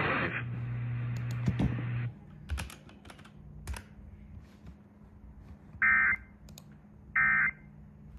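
Radio static with a low hum cuts off about two seconds in, followed by a few sharp clicks. Then come two short, identical bursts of screeching data tone, about a second apart: the Emergency Alert System end-of-message code being sent.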